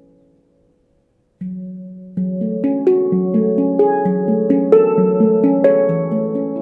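A Veritas 18-note stainless-steel handpan tuned to F# Pygmy, played by hand. Ringing notes die away into a short silence, then a low note sounds, followed by a quick run of overlapping ringing notes.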